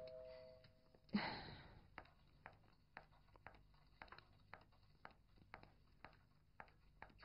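Background music fading out. About a second in there is a single thump, then footsteps on a hard floor, about two steps a second, as a person walks across a room.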